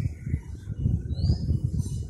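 Uneven low rumble of wind buffeting the microphone, with a bird's short rising chirp a little after a second in.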